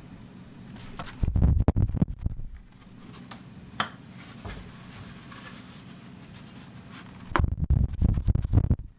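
Wind buffeting the bare capsule of a Boya BY-MM1 mini shotgun microphone with no windshield fitted: two gusts of low rumble, one about a second in and one near the end.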